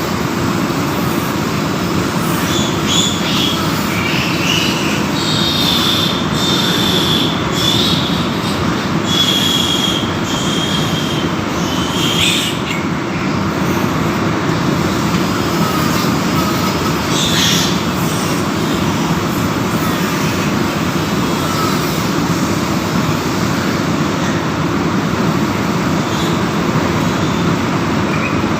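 Piglets squealing and screaming loudly and continuously as they are held for teeth clipping, with shriller high squeals breaking through now and then.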